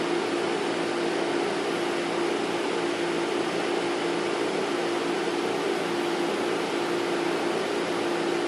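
Steady hum from a running fan or appliance: one constant tone over an even hiss, unchanging throughout.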